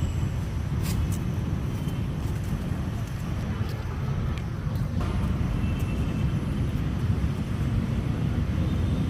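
Steady low rumble of outdoor background noise, with a couple of faint short clicks.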